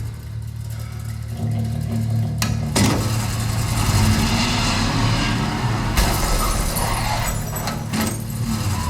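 Film soundtrack car engine running and revving, with a steady low rumble that swells louder about three seconds in and a sharp hit around six seconds, played back over a home theater speaker system with subwoofers and recorded in the room.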